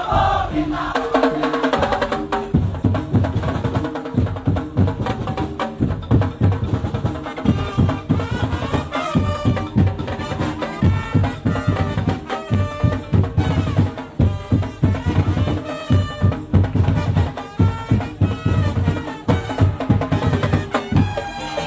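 Traditional music driven by drums and percussion, a dense, steady beat of strikes with a few pitched instrument tones over it.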